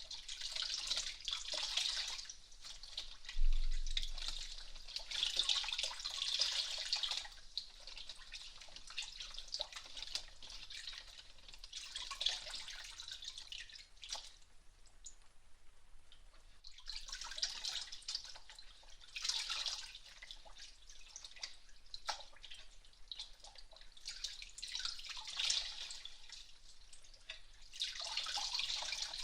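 Hot towel wiped and pressed over the ear of a binaural microphone: repeated rubbing swishes, each lasting a second or few, with one dull thump about three seconds in.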